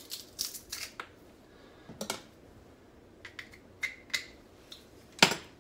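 Garlic cloves being squeezed in a handheld garlic press: a string of sharp clicks and crunches with a brief squeak about four seconds in, the loudest click a little after five seconds in.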